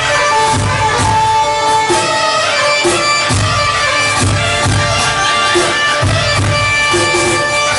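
Live dance music played on electronic arranger keyboards: a synthesized lead melody with long held notes over a steady programmed drum and bass beat of about two thumps a second.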